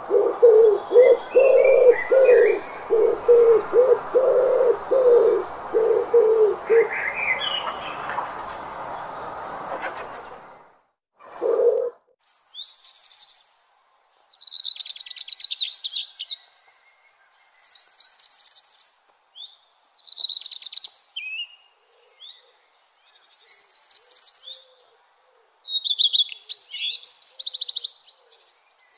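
Nature recording: for about the first ten seconds a steady high insect trill runs under a quick series of low pulsing calls and a few chirps. It stops abruptly, and then a songbird sings short, separate phrases with pauses of silence between them.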